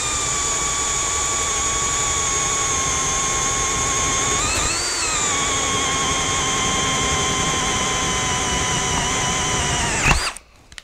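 Cordless drill whining steadily as a 1.5-inch spade bit bores through a doubled-up 2x4. Its pitch rises briefly about halfway through, then settles again. The motor cuts out suddenly with a knock just before the end.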